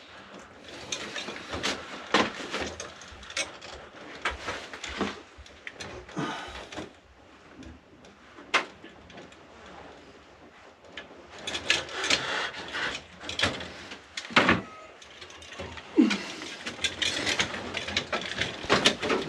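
Hand work on electrical wiring in a wall box: irregular clicks, ratchet-like rasps and scraping of hand tools, wires and plastic wire connectors as the connections are made up.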